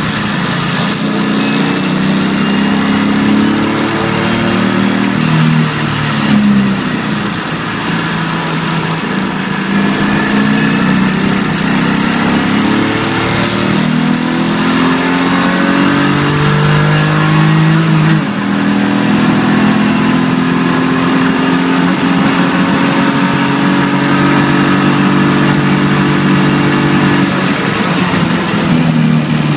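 In-cabin sound of a BMW 325ti Compact's 2.5-litre straight-six driven hard. Its pitch climbs and drops back several times as it shifts through the gears and lifts, over steady road and tyre noise.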